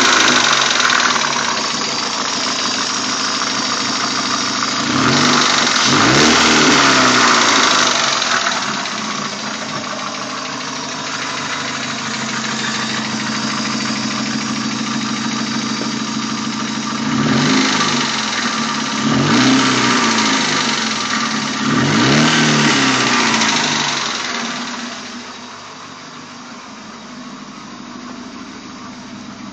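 Hyundai Elantra's G4ED 1.6-litre 16-valve engine running cold with its hydraulic lifters knocking. It is revved four times, one longer rev about five seconds in and three shorter ones later, then settles back to a quieter idle near the end.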